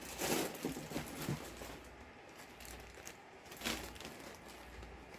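Plastic bag of charcoal being opened and handled: short bursts of rustling and crinkling, the loudest in the first second and another about three and a half seconds in.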